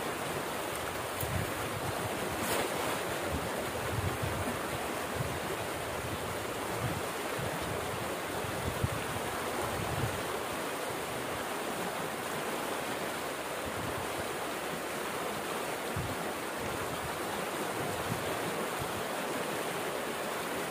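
Steady rush of muddy stream water pouring out of a concrete culvert pipe and churning into the pool below.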